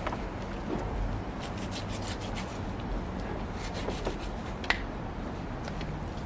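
Kitchen handling sounds of lamb being worked on a board: steady rubbing and scraping, with scattered light clicks and one sharper click about three-quarters of the way through.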